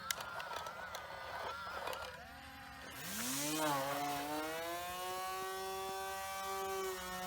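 A couple of clicks, then a quieter wavering whine. About three seconds in, the robot lawnmower's electric blade motor spins up: its whine rises in pitch and settles into a steady hum as the hacksaw-blade cutter comes up to speed.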